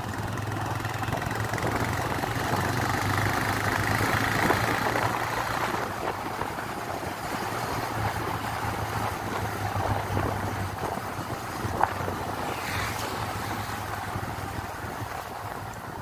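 Motorcycle engine running steadily while riding along a road, its low hum under wind and tyre noise, with one short click in the last third.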